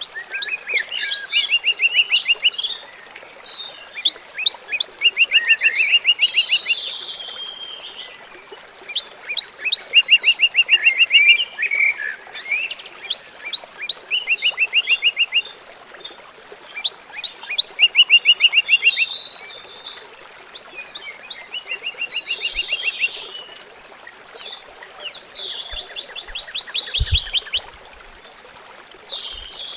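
Songbirds singing: bouts of fast, even trills and sharp chirps every few seconds, over a steady faint hiss of flowing water.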